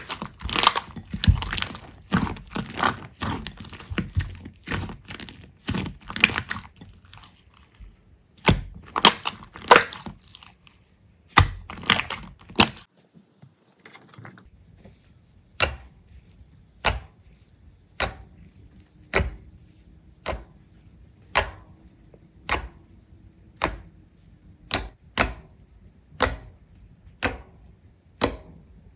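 Slime being pressed and worked, giving bursts of crackling pops. After a short break about halfway, single sharp pops come at a steady pace of about one a second.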